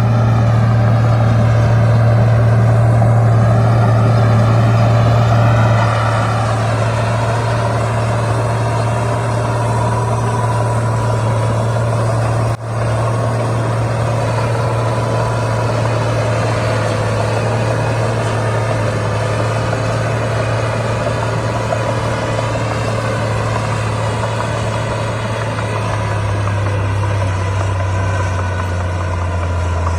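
Heavy diesel earthmoving machinery running with a steady low drone, its pitch wavering a little in the first several seconds and then holding even. The sound breaks off for an instant about twelve and a half seconds in.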